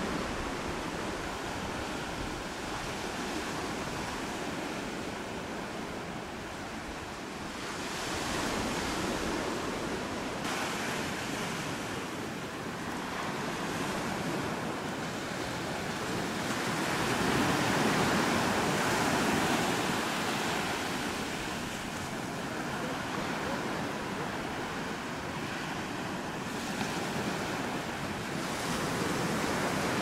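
Small sea waves breaking and washing up a sandy beach among boulders. The surf rises and falls, swelling louder every several seconds, loudest about halfway through.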